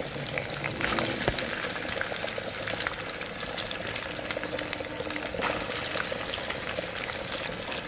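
Small boneless chicken pieces deep-frying in a kadai of hot oil on high heat, a steady sizzling with fine crackles, as they are fried until golden for pickle.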